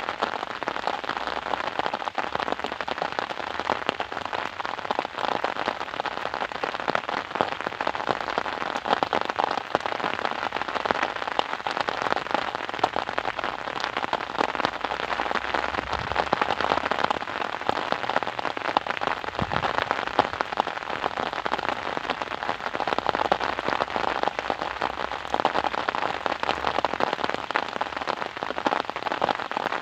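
Steady rain, a dense, unbroken patter of many small drops.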